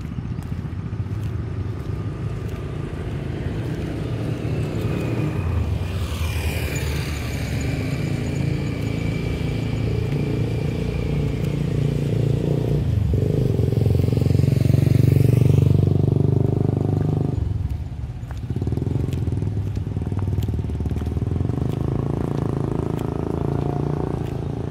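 A motor vehicle passing, over a steady low rumble; the sound swells from about six seconds in, is loudest about fifteen seconds in, then fades.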